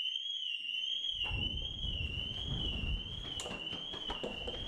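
Building alarm sounder going off: a steady, high electronic warble that wavers up and down about twice a second.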